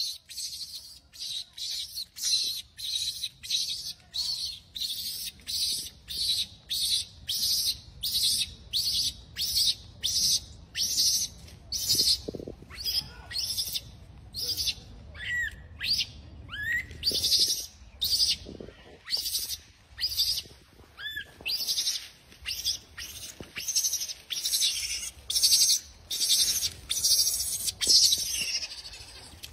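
A high-pitched chirp repeated steadily about twice a second, with a few lower whistled notes mixed in partway through.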